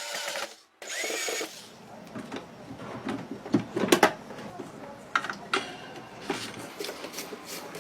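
Mechanical clicking and knocking, a few sharp clicks clustered about four seconds in, after a short rush of noise at the start.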